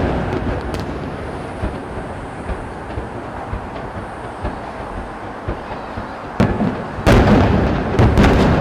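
Aerial fireworks: the rumble of earlier shell bursts dies away over the first few seconds, then a bang about six seconds in. A rapid barrage of booming bursts and crackles follows near the end.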